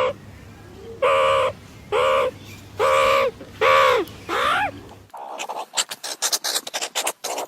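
An animal calling about six times, one short, arching call roughly every second. A quick run of short clicks or taps follows for the last two seconds or so.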